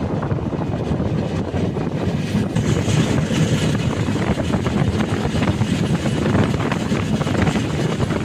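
Express train running at speed: a steady, unbroken rumble of the moving coach with rushing wind.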